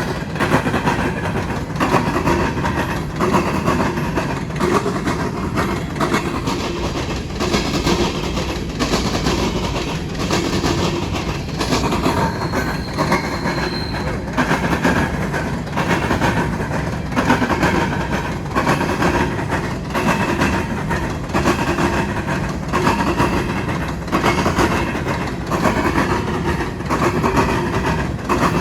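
Cars of a Norfolk Southern grain train rolling past, their wheels clicking steadily over the rail joints above a continuous rumble. A wheel gives a brief high squeal about halfway through.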